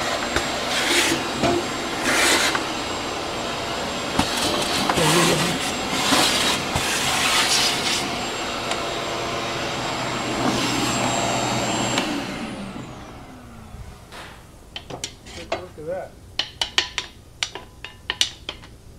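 Shop vacuum running steadily with a thin high whine, sucking up metal shavings from a cylinder-boring machine's fixture. About twelve seconds in it is switched off and winds down with a falling whine, followed by a few light metal clinks and knocks.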